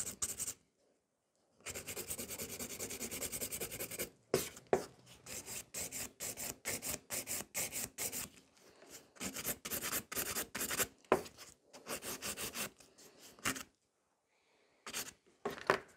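Hand nail file rasping across a sculpted gel nail extension in quick back-and-forth strokes, smoothing and shaping the nail. It stops briefly about a second in and again near the end.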